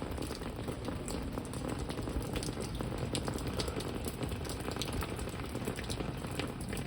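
Heavy rain falling steadily, with many separate sharp drop hits over a low rumble of gusting wind.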